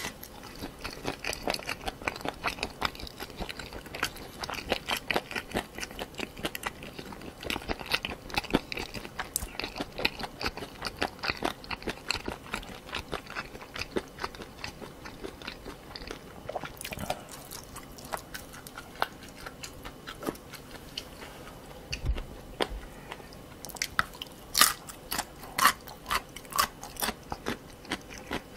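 Close-miked chewing of spicy stir-fried pork cartilage, with a steady run of wet crackles and crunches as the gristle is bitten through. There is a dull low knock about two-thirds of the way in, and louder, sharper crunches near the end.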